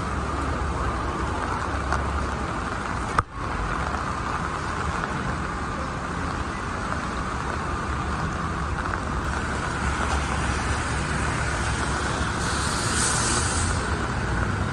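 Steady traffic noise on a wet city street in the rain: cars passing with tyres hissing on wet pavement. A sharp click about three seconds in, and a short high hiss near the end.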